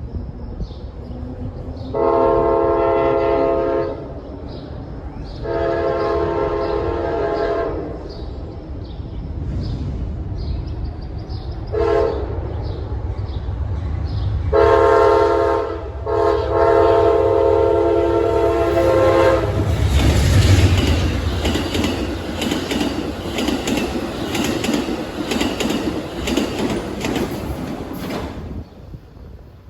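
A locomotive's Leslie K5LA five-chime air horn blows the grade-crossing signal: two long blasts, one short, and one final long. The train then rolls past with a deep rumble and clickety-clack of wheels over rail joints, dying away near the end.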